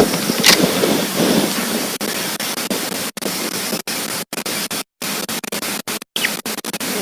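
Steady hiss of rain. From about three seconds in, the sound cuts out completely for short moments, many times over.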